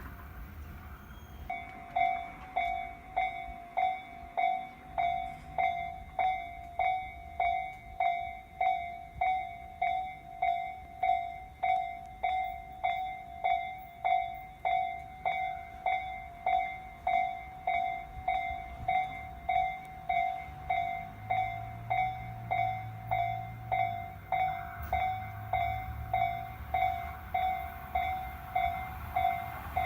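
Railway level-crossing warning alarm, the slow-tempo Tojo-type electronic bell of the Tobu Noda Line, starting about a second and a half in and then ringing evenly, about three dings every two seconds. A low hum joins in during the second half.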